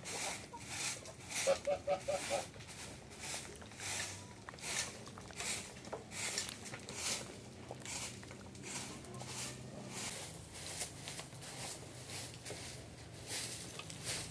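Straw broom sweeping bare dirt ground in short, regular strokes, about two brushing swishes a second.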